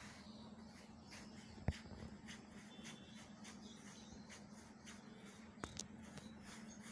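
Quiet background with a steady low hum and a few sharp clicks, the loudest a single knock a little under two seconds in, with a couple of smaller clicks near the end.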